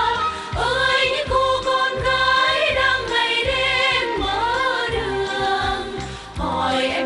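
Female vocal group singing a song in harmony over a band accompaniment with a steady bass beat.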